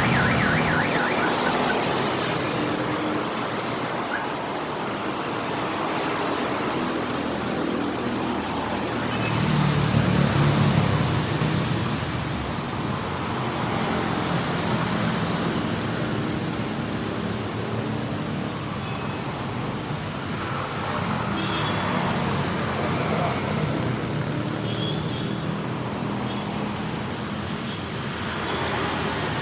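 Busy street traffic of motorcycles and cars running past, with one vehicle passing louder about ten seconds in. A few short high tones in the second half, most likely horns.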